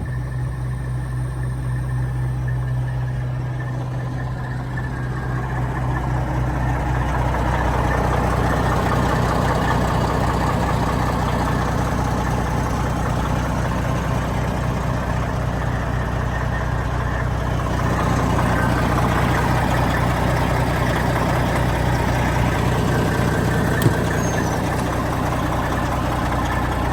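Detroit Diesel Series 60 inline-six diesel in a Peterbilt dump truck idling steadily. It grows somewhat louder about a quarter of the way through, and there is a single sharp click near the end.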